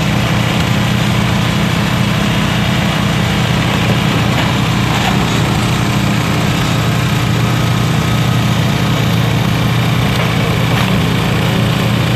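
Small Briggs & Stratton EXI engine of a motorized dump cart running steadily at idle.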